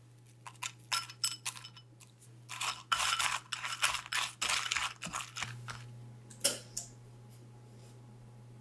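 Homemade granola clusters dropping into a glass bowl, a quick run of light clinks ringing on the glass, then milk poured over the granola with a dense crackling patter for a few seconds. One sharp click follows, and then the sounds stop.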